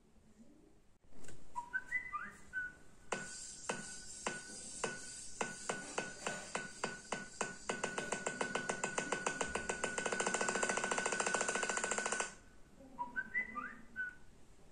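Edited sound effects: a short rising whistled jingle, then a run of sharp clicks that starts slow and speeds up into a rapid rattle over a steady high tone, cutting off suddenly about twelve seconds in, followed by the whistled jingle again.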